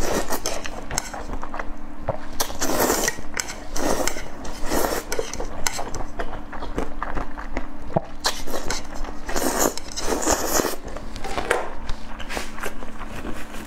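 Close-miked eating of noodles in a spicy sauce: several long, wet slurps, with chopsticks clicking against a metal pan between them.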